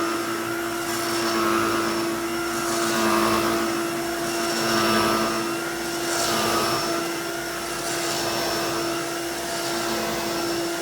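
Aerus Electrolux Epic upright vacuum running with its brush roll on: a steady motor whine over rushing air, swelling and easing every second or two.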